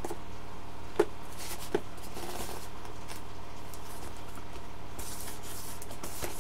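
Hands handling and turning over a foam RC airplane wing: light rubbing, two sharp taps about a second and two seconds in, and a brief rustle around five seconds in, over a steady low hum.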